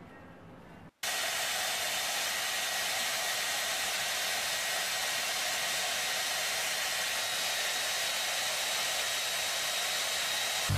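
A steady, even hiss of rushing air with a faint high whine in it, starting abruptly about a second in and holding at a constant level.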